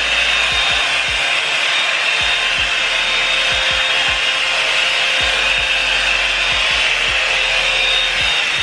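Revlon One Step hair dryer brush running steadily, its fan blowing with a hiss and a thin motor whine, with scattered low bumps as the brush is worked through the hair.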